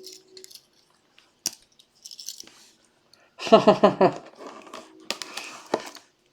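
Trading-card packaging being handled at a table: scattered clicks and taps with crinkling and rustling. A brief wordless vocal sound comes about three and a half seconds in.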